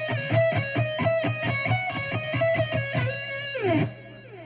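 Jackson electric guitar playing a fast run of alternate-picked notes in a repeating single-string pattern from the D Aeolian scale. About three and a half seconds in, the run ends with a falling slide down the string, and the playing stops.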